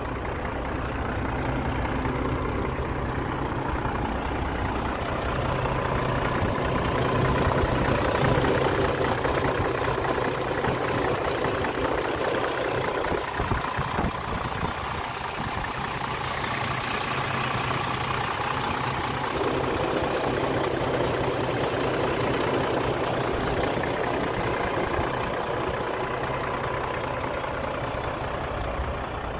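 Caterpillar 3306 inline-six diesel engine of a Ford LT9513 concrete mixer truck idling steadily, with the hood open. The deepest part of the rumble drops away for a few seconds in the middle.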